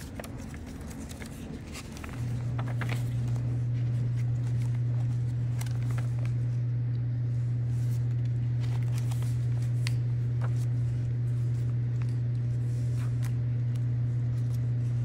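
A steady low hum comes on about two seconds in and holds to the end, the loudest sound throughout, with faint ticks and rustles of paper pages and envelopes being handled and turned.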